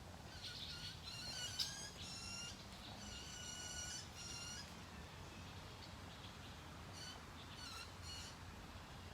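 Sandhill cranes calling close by: bursts of rattling, trilled calls through the first four seconds or so, then a shorter burst near the end.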